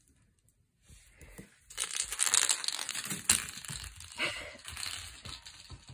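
Crinkling and crunching of a small plastic toy ball as a griffon puppy plays with it. After a near-silent first second, uneven rustling crackles start a little under two seconds in and go on with a few sharper snaps.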